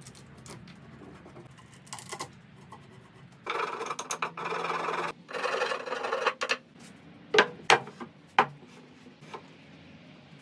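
Two long scraping strokes on wood, each a second or more, followed by three sharp knocks.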